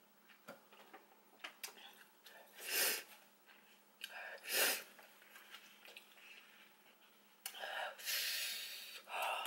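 A person huffing against a mouth burning from very spicy noodles: two sharp breaths about three and four and a half seconds in, then a long blow-out through pursed lips near the end, with faint mouth clicks between.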